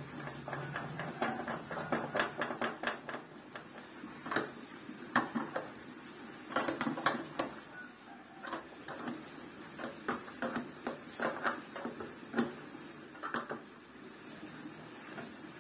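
Irregular clicks, taps and knocks of wooden and plastic parts being handled and fitted on a plywood table-saw fence jig, coming in uneven clusters with short pauses.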